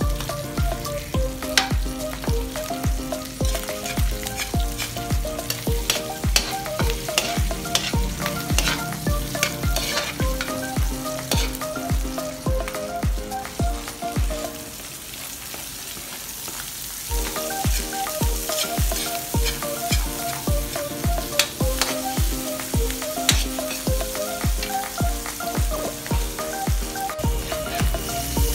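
Background music with a steady beat over garlic and chopped aromatics sizzling in a metal wok, with a metal spatula clicking and scraping against the pan as they are stirred. The music drops out for a few seconds about halfway, leaving just the frying.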